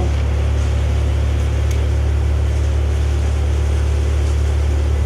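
A machine running steadily with a deep, even hum and no change in pitch or level.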